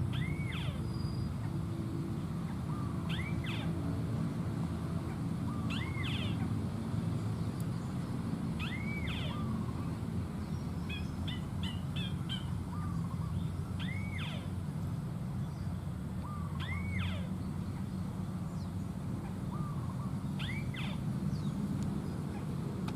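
A bird call, an arching whistled note followed by a short lower note, repeated at regular intervals about every three seconds, with a brief burst of short chips near the middle. A steady low rumble runs underneath.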